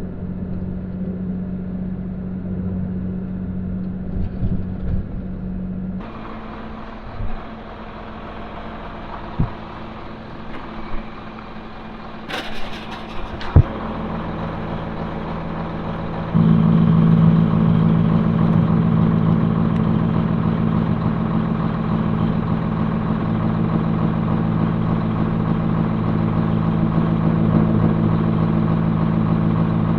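Tractor engine running steadily, with a few sharp knocks and clicks around the middle. The engine sound changes abruptly about six seconds in and becomes louder and fuller about sixteen seconds in.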